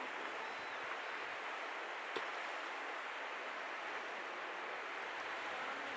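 Adige River flowing fast, a steady even rush of water, with a single short click about two seconds in.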